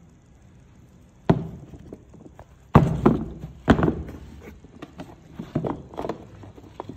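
Air Max Scorpion sneakers being handled and set down on a cardboard shoebox. There are a few sharp knocks and thumps, the loudest three in the first half, then softer knocks and handling noise.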